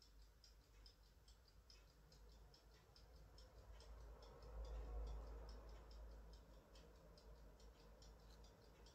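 Near silence: faint room tone with rapid, irregular faint ticks, and a slight swell of noise about four to six seconds in.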